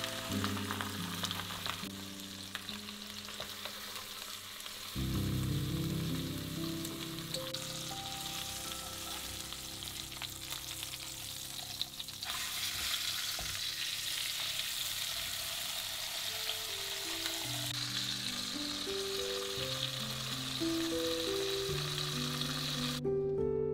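A flattened whole chicken sizzling as it sears in olive oil and butter in a frying pan, with soft music underneath. The sizzle breaks briefly about halfway through and comes back louder, then cuts off just before the end.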